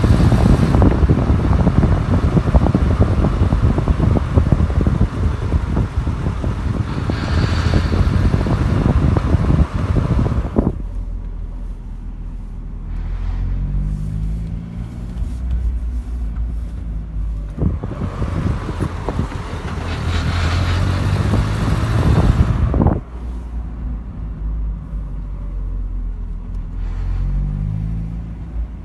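Mazda Miata's four-cylinder engine running with the car rattling. Dense rattling and road noise fill the first ten seconds and return about two-thirds of the way through. In the quieter stretches between, the engine's pitch rises and falls.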